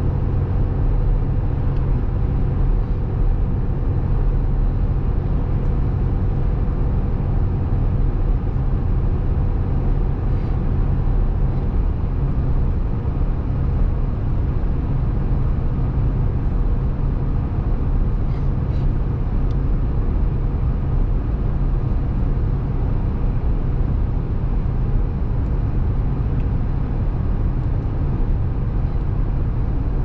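A car in motion, heard from inside the cabin: a steady, unbroken low drone of engine and tyre noise.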